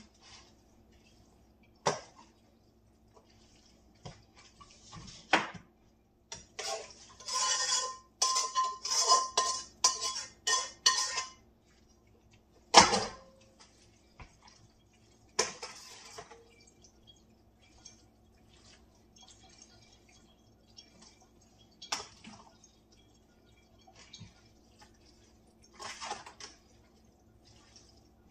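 Metal spoon and dishes clinking and scraping against a pan: scattered clinks, a quick run of rapid scraping strokes for a few seconds, and one sharp knock about halfway through.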